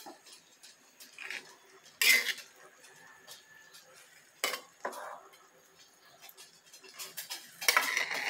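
Metal spatula scraping and knocking against a honeycomb-textured wok while stirring saucy chicken and long beans. The strokes come in separate bursts, loudest about two seconds in, with a closer run of scrapes near the end.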